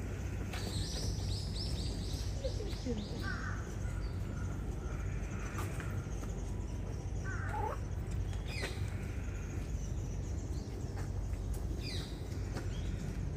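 Birds calling over a steady low background rumble: a quick run of about a dozen short high notes in the first few seconds, then scattered single calls, several of them falling in pitch.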